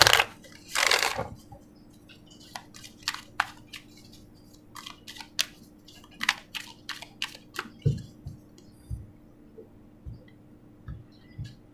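Oracle card deck being shuffled by hand: two brief swishes of cards at the start, then a run of light snaps and flicks as cards slide against each other, and a few soft low taps near the end as cards are set down on the cloth-covered table.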